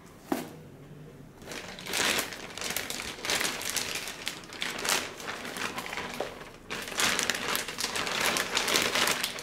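Clear plastic bag crinkling and rustling as it is pulled off a car stereo head unit, in two long stretches with a short pause between them. A single sharp tap comes just before.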